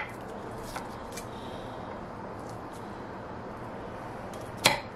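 Steady low room hiss with a few faint clicks and one sharp click near the end.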